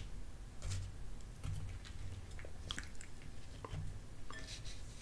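A fork breaking into the baked, flaky crust of a Banquet chicken pot pie: a few faint, scattered crackles and scrapes about a second apart.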